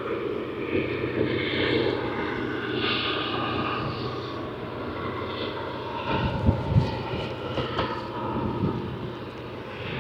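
Diesel freight train crossing the viaduct overhead: a steady low drone from the locomotive engine under the rumble of the wagons on the rails, with a few heavier low thumps a little past halfway.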